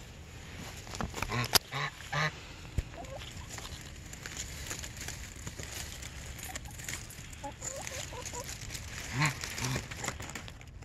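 Chickens hiding in a bush give short, loud honking squawks: a burst of three or four about a second in and another pair near the end, with softer wavering clucks between them. A couple of sharp clicks sound early on.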